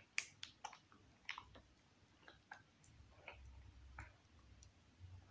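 Quiet eating of an ice cream cone: faint, scattered mouth clicks and smacks, about a dozen irregular ticks over a few seconds against near silence.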